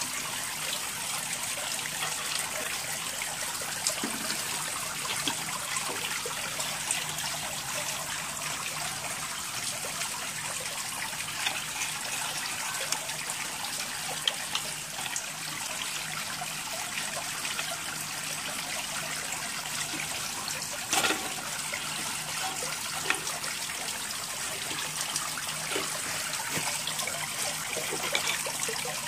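Steady hissing noise, like trickling water, with a few faint clicks and one sharper knock about two-thirds of the way through.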